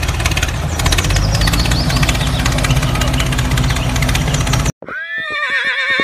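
A tractor engine running with a rapid knocking beat, cutting off suddenly near the end. A horse whinnies right after.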